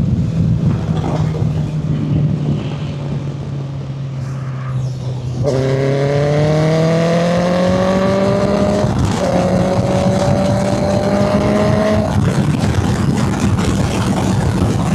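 Honda CB650F inline-four engine running through a custom muffler made from a CBR650R exhaust while riding. The note falls steadily as the bike slows for about five seconds. It then rises as the bike accelerates, with two short breaks in the climb where gears are changed.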